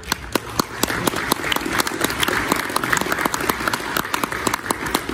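Audience applauding, many hands clapping at an uneven rate.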